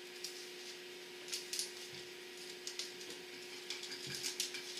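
Light clicks and small scrapes of a kerosene heater's metal wick holder being handled while a new wick is fitted around it, in a few loose clusters over a faint steady hum.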